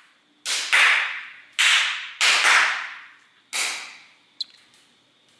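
Four sharp hand claps spaced about a second apart, some doubled, each trailing a short room echo: a sync clap marking sound and picture at the start of a recording. A faint tick comes near the end.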